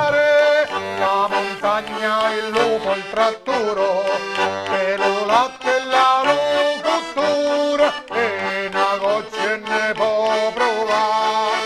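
Diatonic button accordion (organetto) playing a folk tune: a melody with quick trills and runs over bass notes that pulse on and off in a steady rhythm.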